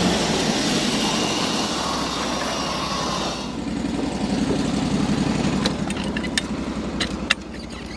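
Mechmaxx 36 sawmill's gas engine running; a broad hiss over it dies away about three and a half seconds in, leaving the engine idling. A few sharp clicks come near the end.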